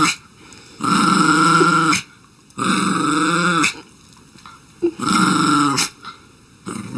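A dog growling and grumbling in drawn-out, pitched calls, each about a second long and coming roughly every two seconds: three full calls, with a fourth starting at the very end.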